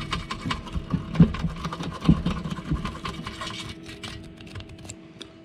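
Rapid, irregular scraping and clicking of a wire-reinforced plastic hose rubbed back and forth inside the bore of a scooter carburetor, scouring out dirt. The strokes thin out after about three and a half seconds.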